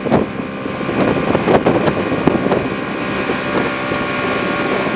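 Motorboat engine running steadily at towing speed, with wind buffeting the microphone and water rushing past the hull. A few sharp thumps, the loudest about a second and a half in.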